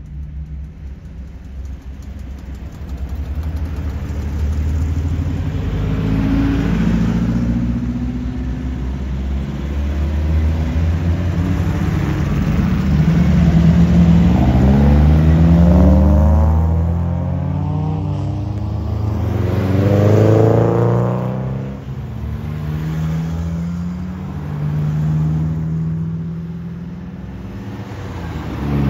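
Datsun roadsters driving past one after another, their engines growing louder and changing pitch as each goes by. The loudest passes come about halfway through and again a little past two-thirds of the way.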